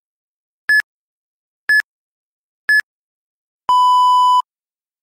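Electronic countdown beeps from an interval-training timer: three short, high beeps about a second apart, then one longer, lower beep that signals the start of the run interval.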